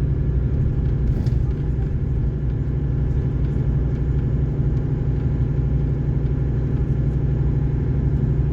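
Volvo D13 13-litre inline-six diesel engine of a Volvo 9800 coach running steadily, its sound heavy in the low end with an even, unchanging drone.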